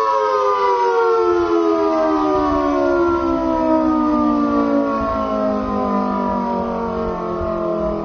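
Old hand-cranked air-raid siren winding down: its wail of several tones held together slides steadily lower in pitch, slowly fading.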